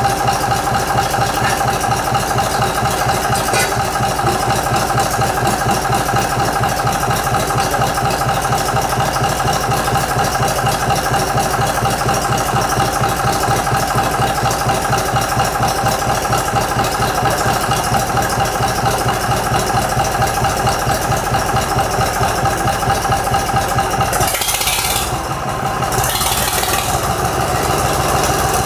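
Gardner 3LW three-cylinder marine diesel running steadily at idle on a test stand, with an even, rapid firing beat and some rattle. Near the end its note dips briefly under a short hiss, then steadies again.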